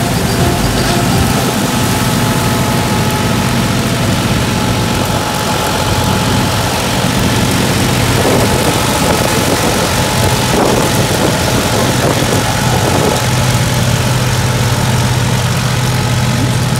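New Holland 5620 tractor's diesel engine running steadily under PTO load, driving a New Hira straw reaper as it cuts and threshes wheat stubble into straw, with the whir and rush of the reaper's machinery over the engine.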